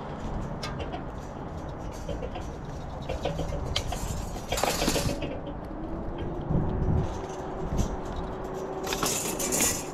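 Bolt cutters working on the flat metal straps that hold down an antenna mast, giving two short bursts of metallic snapping and rattling about four and a half seconds apart, over a low steady rumble.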